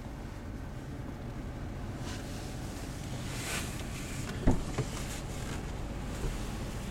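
The 2011 Dodge Dakota's 3.7 L V6 idling steadily, heard from inside the cab, with a single knock about four and a half seconds in.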